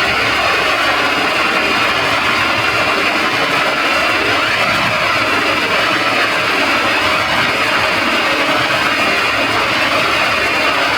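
Dense, heavily distorted electronic noise from a stack of audio effects, running at a constant loud level with many overlapping wavering tones layered on one another.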